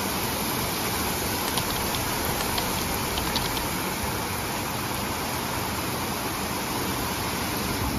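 Heavy rain pouring down in a steady hiss, with a few faint sharper ticks of drops in the first few seconds.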